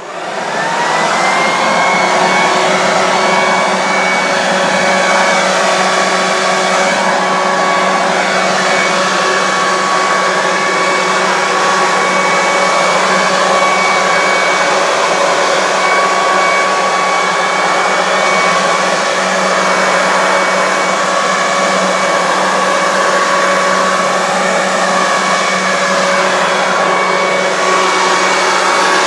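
Corded electric leaf blower switched on, spinning up over about a second to a steady high whine over loud rushing air, then running continuously.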